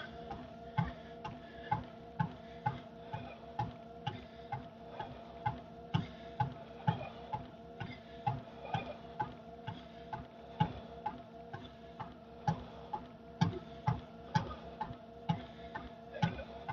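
Cardio machine in use: evenly spaced clicks about twice a second, in time with the user's steps, over a steady machine hum.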